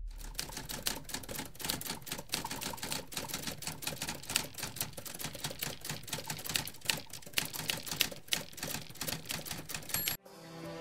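Typewriter keys clacking in quick, irregular succession, stopping abruptly about ten seconds in.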